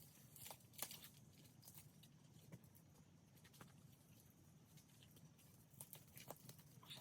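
Near silence, with faint scattered clicks and crackles.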